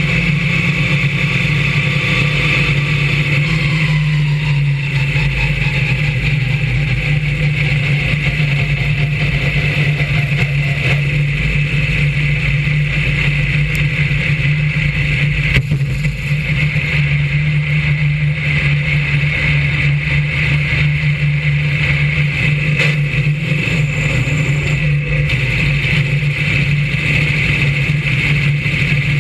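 Brisca F1 stock car's V8 engine running steadily under way in a race, heard from a camera mounted on the car, with a tone that falls away a few seconds in.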